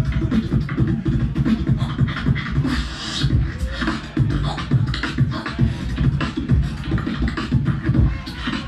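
Human beatboxing into a handheld microphone: a dense rhythm of deep kick-drum-like booms mixed with sharp clicks and hissy hi-hat-like sounds.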